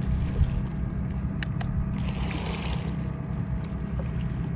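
Fishing boat's engine running steadily with a low hum. Two sharp clicks come about a second and a half in.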